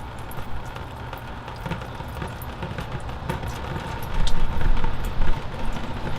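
Oily, foul liquid being dumped out of a jar, splattering, over a steady low rumble. It gets louder about four seconds in.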